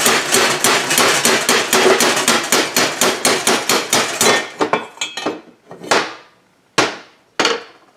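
Heated chainsaw crankcase half rapped down hard again and again, a fast run of sharp knocks at about five or six a second, thinning to a few single knocks near the end. The knocking is meant to shake the main bearing out of its pocket, but the bearing stays put: the case is not yet hot enough to release it.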